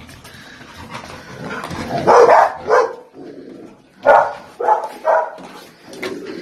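Golden retriever barking, five short barks in two bursts: two barks a couple of seconds in, then three more about a second later.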